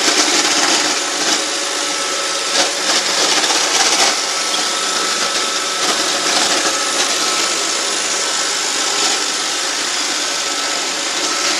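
Roomba 560 robot vacuum running: a steady whir from its vacuum motor and brushes, with a thin steady whine and a few brief knocks in the first few seconds.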